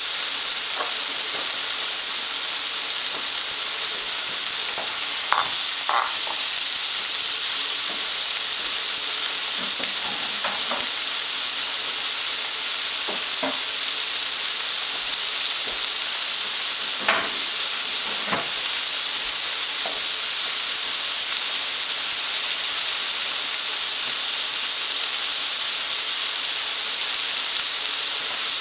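Onions and apple frying in oil in a pan, a steady sizzle, with a few light clicks and scrapes of a utensil against the pan.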